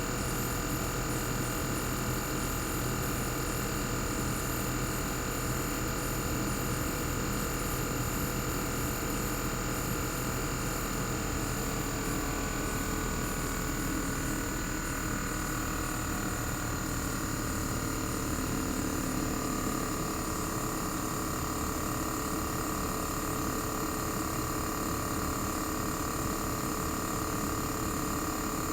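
Single-rotary inverter compressor of a Panasonic CU-227CF air-conditioner outdoor unit running, recorded bare with its sound insulation opened. A steady hum and whine made of several fixed tones, with a high steady whine above them. Partway through, some of the tones shift in pitch as the running speed changes.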